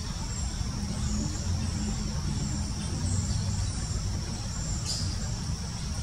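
Steady low rumble of distant road traffic under a continuous high insect drone, with a few faint high chirps and a single sharp tap about five seconds in.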